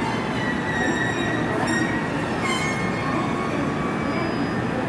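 A train moving through the station, with thin high-pitched squeals that come and go over the steady running noise.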